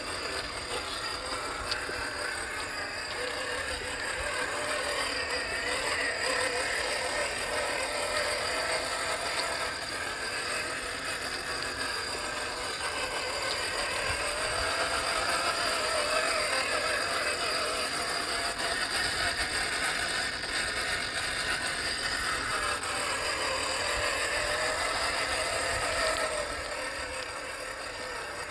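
1/10-scale RC crawler's brushed 550 electric motor and geared drivetrain whining, its pitch rising and falling with the throttle, with rattling from the chassis and tyres over wet stones.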